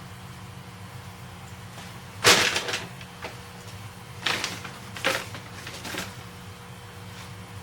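Sand being poured into an aquarium over the substrate, heard as four short rushing pours. The first, about two seconds in, is the loudest; the others follow over the next few seconds.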